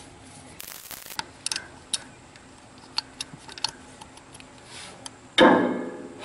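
Small metallic clicks and taps from a screwdriver and fingers working the screws and ignition points in a tractor distributor. About five seconds in, a single louder metal clank rings briefly and fades.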